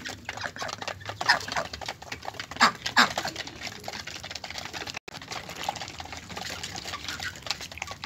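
Muscovy ducks and chickens pecking and dabbling at feed in plastic dishes: a busy, irregular patter of beak taps and clicks.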